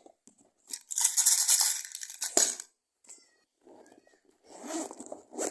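Rustling and crinkling of things being handled and packed back into a bag. A loud crinkly stretch about a second in ends with a sharp click, followed by softer rustling near the end.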